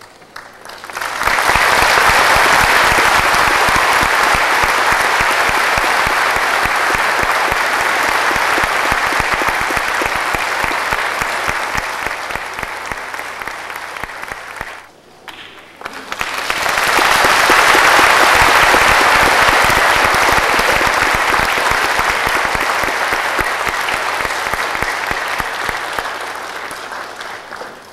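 Audience applauding in two rounds. Each round swells quickly and then slowly fades, with a brief lull about halfway through.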